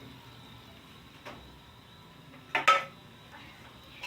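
Metal cookware clanking: a faint click, then a loud double clank with a short ringing tone about two and a half seconds in, over a low steady hiss.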